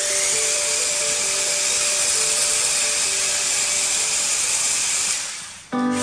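Electric motor of a remote-control toy car running with a steady high whir, with a simple stepping tune beneath it. The whir fades out about five seconds in, and different music cuts in suddenly near the end.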